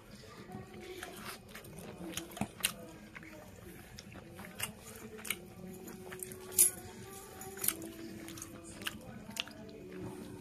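A person eating chicken on the bone at close range: chewing and biting, with irregular sharp clicks and crunches. The loudest comes about six and a half seconds in.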